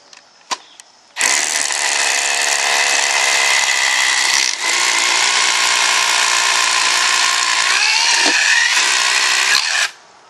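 Cordless drill with a 3/8-inch concrete bit drilling a pilot hole into pavement, starting about a second in, with a brief dip near the middle and stopping suddenly just before the end. The bit is pushed down the hole a second time to clear it of dust for the concrete anchor.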